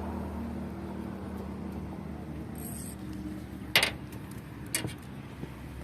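An engine running steadily with a low hum, fading slightly, with two sharp knocks about a second apart near the middle.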